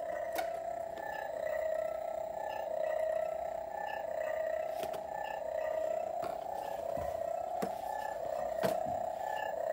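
Telescoping toy lightsaber's electronic hum from its small speaker: a steady buzzing tone that swells and fades slightly, with a few sharp clicks.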